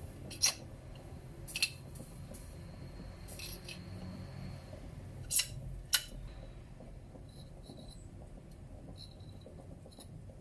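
Four sharp clicks or taps of small objects being handled, at irregular spacing about half a second, 1.6, 5.4 and 6 seconds in, with a few fainter ticks later.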